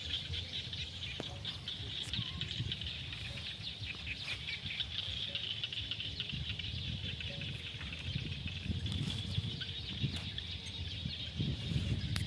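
Open-field ambience: a steady, dense high-pitched chirring chorus with uneven low wind rumble on the microphone, and a few faint short calls.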